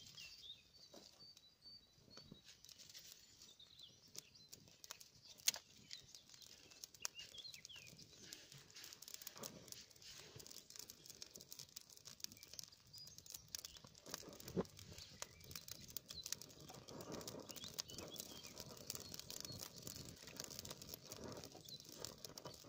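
Small twig campfire catching, with faint crackling and scattered pops that grow more frequent as the flames build.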